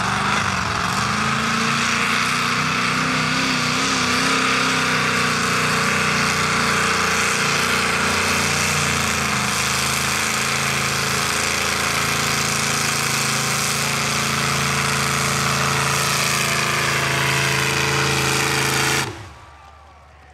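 Mud-bog truck engine running hard at high revs with a loud, rough, rattling note as the truck ploughs through the mud pit. The engine sound drops away suddenly near the end.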